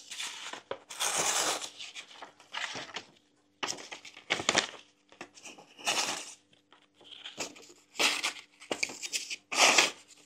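A kitchen knife pushed through a sheet of paper in repeated short strokes, about one a second; the paper rasps and tears rather than slicing cleanly. This is the sign that the blade is still dull after the rolling sharpener.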